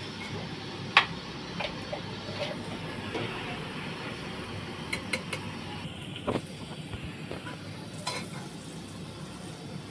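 Metal spoon stirring in an aluminium pressure cooker, clinking against the pot several times, the sharpest clink about a second in, over a steady hiss from the pot cooking on the gas flame.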